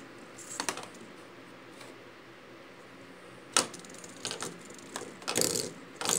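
Plastic fidget spinner knocked about on a wooden desk by a kitten's paw: a handful of separate clicks and clatters, the loudest a short burst of clatter about five and a half seconds in.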